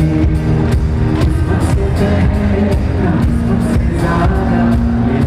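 Loud pop music with a steady beat under held low notes.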